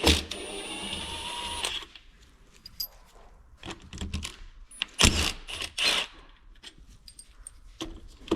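Metal hand tools and engine parts being handled: a grating slide for the first second and a half, then scattered sharp metallic clicks and clinks.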